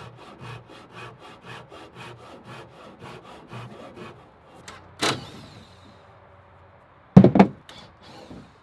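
Sharp fine-toothed hand saw cutting wooden framing lumber by hand in quick, even strokes, about four a second, for the first four seconds. A single sharp crack follows about five seconds in, then two loud knocks near the end.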